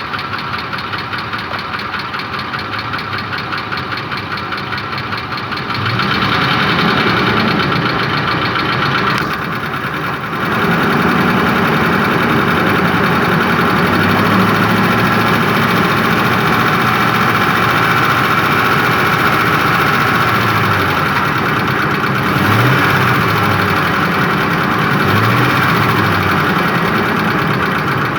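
Ford Triton 5.4 3V V8 engine with a knock, running with its solenoid connectors unplugged: it idles, is revved up about six seconds in, dips briefly and is held at higher revs, gets two short blips near the end, then drops back toward idle. The knock shows no audible change with the solenoids disconnected.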